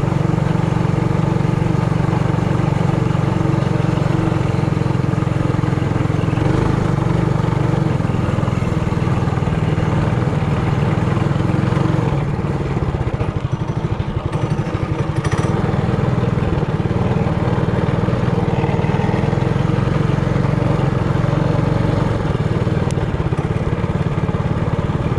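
Trailmaster Hurricane 200X mini bike's single-cylinder engine running steadily under way. It eases off briefly about halfway through, then picks back up.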